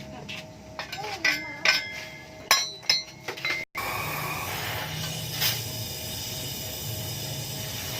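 Metal clinking and tapping, with short bright ringing, as exhaust muffler parts are handled and struck. After an abrupt cut it turns to a steady noisy hum.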